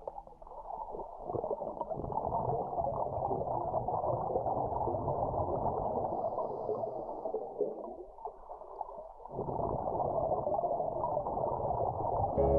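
Muffled underwater gurgling and rumbling of a scuba diver's exhaled bubbles, heard through an underwater camera housing, with a short lull about eight seconds in.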